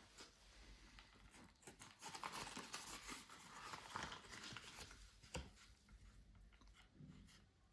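Faint rustling and crinkling of packaging being handled, loudest from about two to four and a half seconds in, with one sharp click a little past five seconds.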